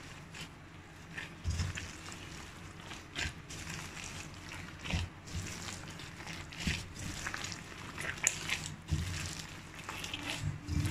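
Gloved hands mixing a loose, sticky bread dough with chopped olives, jalapeños, cheese and egg in a stainless-steel bowl, with irregular light clicks and knocks of hand and dough against the bowl.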